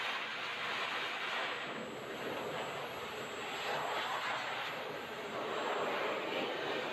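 Hose-type pet blow dryer blowing air through its nozzle, a steady rushing noise that swells and eases a little as the nozzle is moved over the dog's coat.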